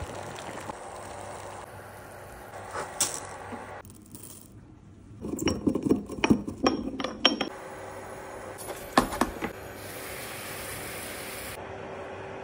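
A stone mortar and pestle crushing whole black peppercorns: a quick run of grinding, cracking knocks about five seconds in, after a pot of water at a rolling boil hisses steadily. A brief hiss follows near the end.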